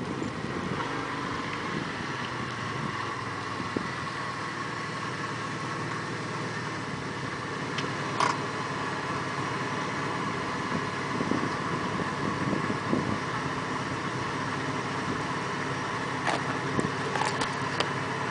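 Mitsubishi 3000GT's V6 engine idling steadily, with the stock exhaust leaking at a point that the owner suspects is toward the front. A few sharp clicks sound about halfway through and again near the end.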